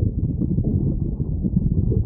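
Hungry stomach growling: a continuous low rumble with brief gurgles rising through it.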